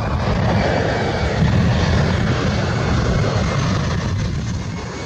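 Airplane engine roar laid in as a sound effect, swelling in, holding steady through the middle and fading away near the end, like a plane passing overhead.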